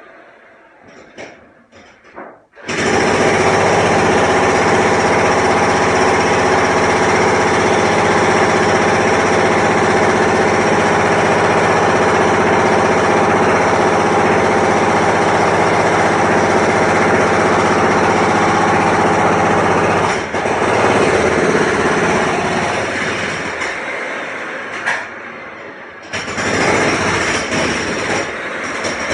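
Construction machinery running: after a few light knocks, a loud, dense mechanical clatter starts abruptly and runs steadily, then shifts and briefly drops away near the end before picking up again.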